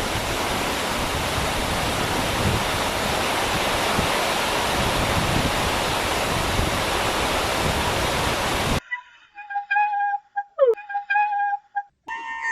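A steady rushing hiss, which cuts off suddenly about nine seconds in. Then come a few short, broken whistle-like tones, one of them sliding quickly downward.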